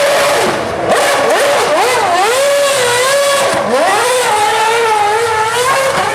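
Formula 1 car engine revving hard, its pitch swooping up and down in several quick blips, then held high and fairly steady from about four seconds in.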